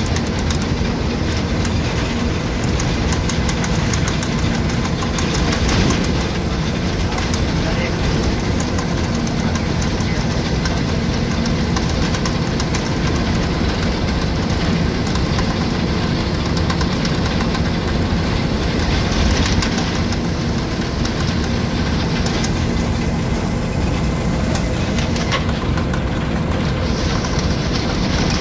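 Bus engine running and road noise heard inside the cabin of a moving bus, with steady rattling of the body and fittings.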